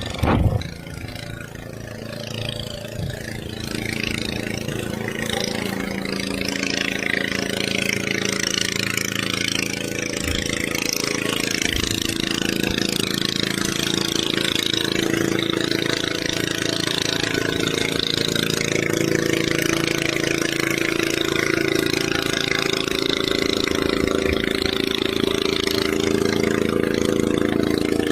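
A motor engine running steadily, growing louder over the first few seconds and then holding even. There is a sharp knock about half a second in.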